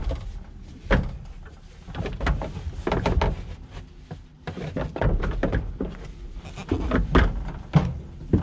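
Goats crowding and jostling at a wooden feeder: irregular knocks and thumps of bodies and hooves against the boards, mixed with goat bleats.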